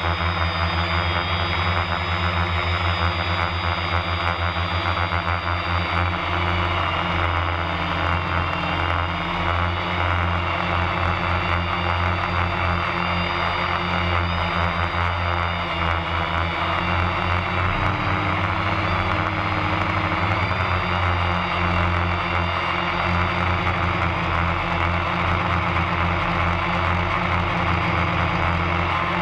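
Drone motors and propellers humming steadily in flight, the pitch wavering slightly partway through.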